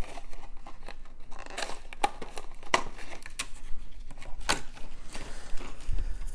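Packaging being handled by hand, rustling and crinkling, with several sharp clicks and taps at irregular moments.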